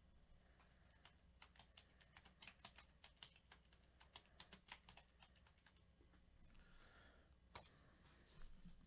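Faint typing on a computer keyboard: a run of light, irregular key clicks, then a sharper single click near the end.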